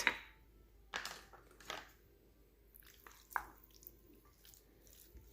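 Cubed raw salmon being mixed in a wet marinade of soy sauce, sesame oil and honey in a bowl: a few soft, wet stirring strokes, the first right at the start, others about a second in and near the middle.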